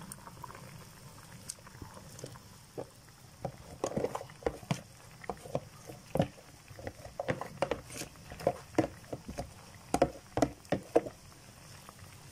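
Wooden spatula stirring chopped banana blossom into thick, simmering coconut-milk curry in a pan: wet sloshing with irregular slaps and knocks, several a second, starting about three and a half seconds in and stopping shortly before the end.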